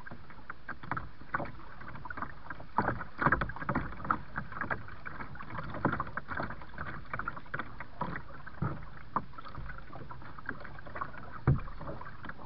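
Kayak paddle strokes splashing and dripping in river water, irregular splashes over a steady rush of water, with a louder splash or knock about eleven and a half seconds in.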